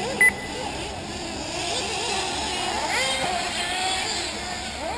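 Several 1/8-scale nitro RC buggy engines buzzing around the track at once, their pitch rising and falling as they accelerate and brake, with a sharp rising rev about three seconds in. A short, loud electronic beep sounds right at the start.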